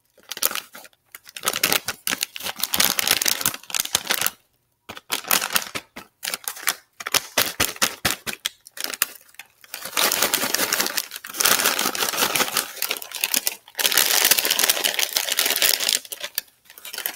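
Plastic-foil potato-chip bag crinkled and rustled close to the microphone: loud, irregular crackling in bursts broken by short pauses.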